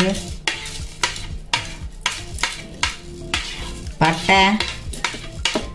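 A plastic spoon scraping and tapping whole spices off a plate into a stainless-steel mixer-grinder jar, with peppercorns and cinnamon sticks clicking as they drop in: a run of irregular light clicks and taps.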